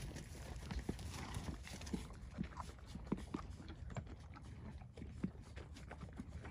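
Horses eating sweet feed from a concrete trough: a rapid, irregular crunching and clicking of grain being nibbled and chewed.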